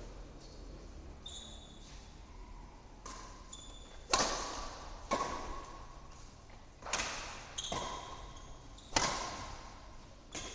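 Badminton rackets striking a shuttlecock back and forth in a rally: about five sharp hits a second or two apart, the first the loudest, each echoing in the large hall.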